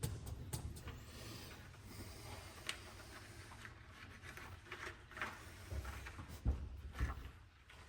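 Tools and engine parts being handled during a bottom-end teardown: scattered knocks, clicks and scrapes, with the loudest knocks about six and a half and seven seconds in.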